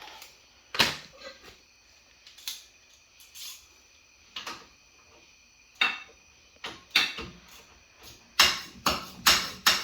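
Metal hand tools clinking and knocking: single sharp clinks about a second apart, then a quicker run of four near the end.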